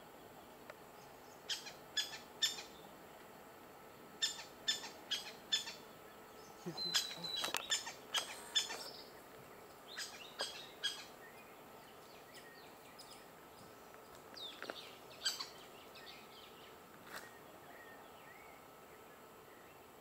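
Gray-breasted woodpecker calling: short, sharp call notes in quick runs of three to five with pauses between, and a denser burst of notes about seven to eight and a half seconds in.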